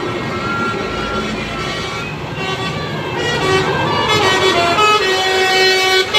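Basuri multi-tone telolet horn playing a melody. One held note sounds about half a second in, then from about two and a half seconds a run of notes steps up and down in pitch and grows louder. A short sharp click comes just before the end.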